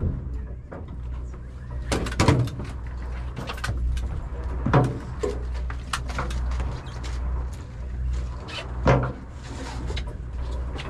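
Steady low drone of a fishing boat's engine, broken every few seconds by sharp knocks and thuds on the deck and hull.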